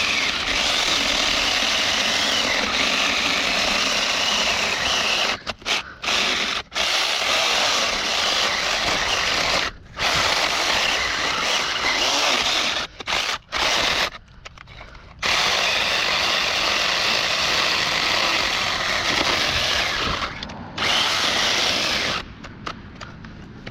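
Saker 20-volt mini cordless electric chainsaw cutting through a large tree trunk. It runs steadily under load, and the trigger is let off several times, briefly, and once for about a second midway. It stops shortly before the end.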